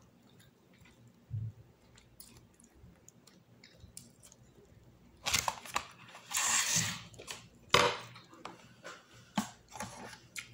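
Eating and table-handling noises: a metal fork clicking against a plastic food container, with a rustling burst about six seconds in and a sharp click near eight seconds, then scattered light clicks.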